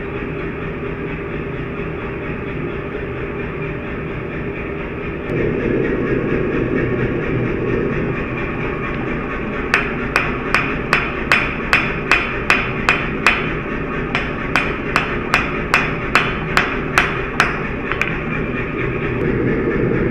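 Hand hammer striking a white-hot steel billet on an anvil, about two dozen quick ringing blows at roughly three a second with a short pause midway, forging folded blister steel into shear steel. A forge runs steadily underneath and grows louder a few seconds before the hammering.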